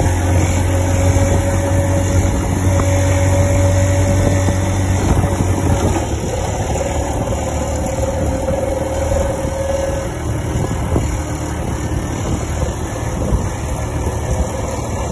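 Bajaj Pulsar motorcycle engine running steadily at cruising speed, about 45–50 km/h, with wind and road noise rushing past. The engine's steady hum fades somewhat about ten seconds in.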